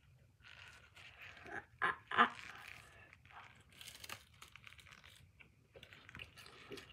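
Crunching bites and chewing of a fried spiral-cut potato chip on a stick. A series of short crunches, with two louder ones close together about two seconds in.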